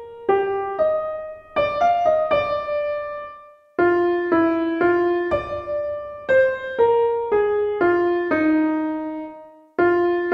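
Piano playing the soprano line of a four-part choral song, a slow melody struck one note at a time with each note dying away, pausing briefly twice where the phrases end.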